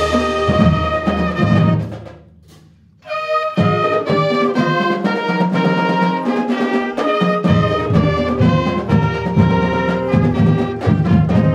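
High school music ensemble playing a holiday piece, with brass instruments to the fore. The music breaks off about two seconds in and comes back in a second or so later.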